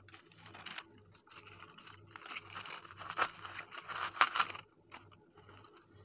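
Soap flowers being handled and pushed into a basket packed with tissue paper: crinkly rustling and scraping in uneven bursts, with a few sharp clicks, loudest about three to four and a half seconds in.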